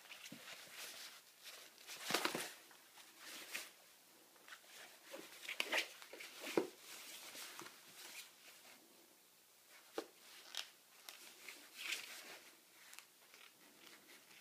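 A ferret scrabbling and rolling about inside a fabric suitcase: irregular rustling and scratching of the nylon lining and mesh pocket, with several louder scuffles.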